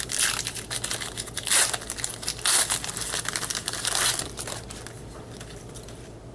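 A trading-card pack's foil wrapper crinkling and tearing as it is opened and handled, in a run of crackly bursts for about four and a half seconds, then quieter.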